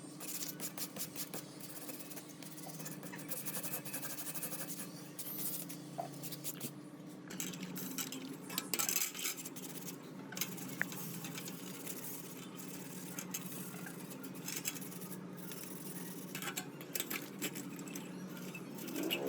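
Metal ceiling-fan parts being handled and worked by hand: repeated light clinks, taps and scrapes of metal on metal, over a steady low hum.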